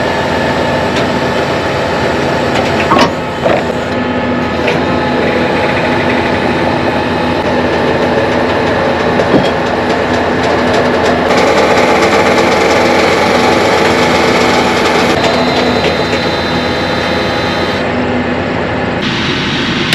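Kinze Mach Till vertical-tillage implement's wings being moved by hydraulics, with the tractor engine running steadily and a few metal clanks from the frame in the first few seconds.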